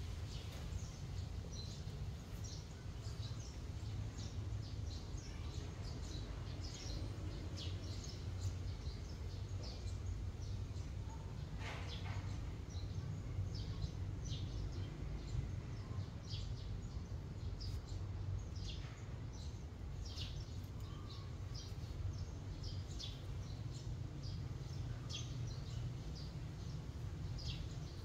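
Small birds chirping in short, irregular calls over a steady low rumble, with one longer falling call about halfway through.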